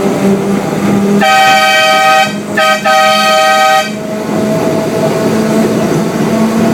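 Horn of a miniature diesel locomotive sounding: a long blast about a second in, a short toot, then a second long blast, about two and a half seconds in all. Underneath, the train's engine and wheels run steadily.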